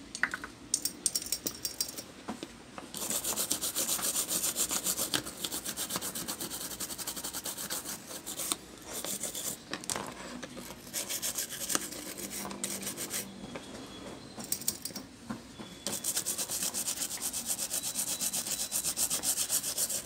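Toothbrush scrubbing a circuit board with alcohol, rapid back-and-forth bristle strokes: cleaning a shorted logic board. The scrubbing comes in two long spells with a quieter stretch in the middle.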